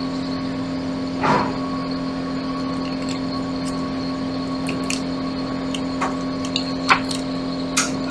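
A steady hum, with a few short crinkles and clicks as aluminium-foil heat shielding is peeled off an iPad Air logic board.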